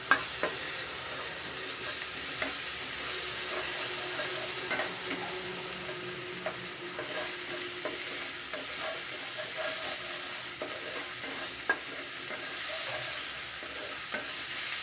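Sliced onions with chillies and ginger-garlic paste sizzling steadily in hot oil in a frying pan, stirred with a wooden spatula that scrapes and clicks against the pan every so often.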